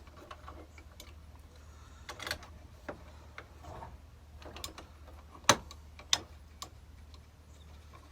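Irregular sharp clicks and taps of small metal hardware being handled and fitted, with the loudest knock about five and a half seconds in, over a low steady hum.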